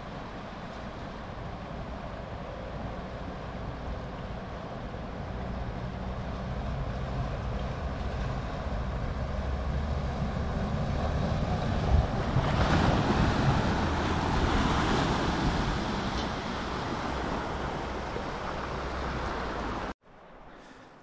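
A four-wheel-drive ute wading across a river crossing: flowing river water rushes steadily while the engine and splashing grow louder as the vehicle comes nearer, loudest a little past halfway, with one brief thud along the way. The sound cuts off abruptly near the end.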